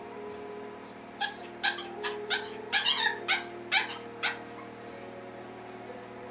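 West Highland White Terrier puppy yapping, about eight sharp, high yaps in quick succession, over soft background music.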